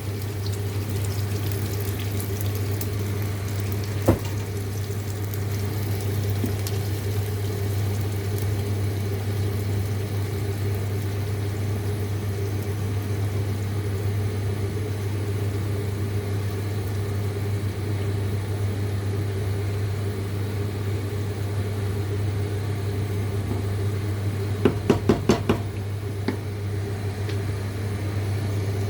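A steady low hum throughout, with a single sharp knock about four seconds in and a quick run of knocks near the end.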